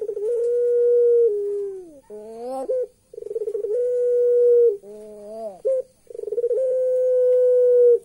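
Puter pelung dove (a Barbary or ringneck dove) cooing: three long drawn-out coos, each opening with a quick stutter, held level and then dropping, with shorter wavering notes between them. This is the call its keeper likens to laughter.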